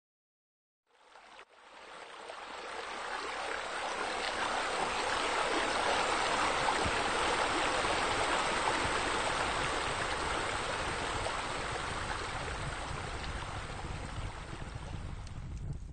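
Water pouring and splashing steadily, a continuous rush that fades in about a second in and eases off slightly near the end.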